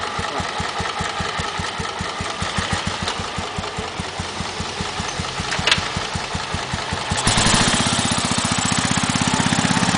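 Royal Enfield Bullet's single-cylinder four-stroke engine idling with a steady, even thump. A sharp click comes about two-thirds of the way in. A little after seven seconds the engine gets louder and fuller as the bike pulls away under throttle.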